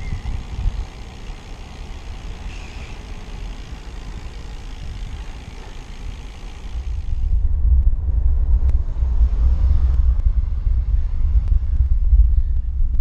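Wind and road rumble on a bicycle-mounted action camera's microphone while riding, a steady low rumble that grows much louder about seven seconds in, with a few faint clicks.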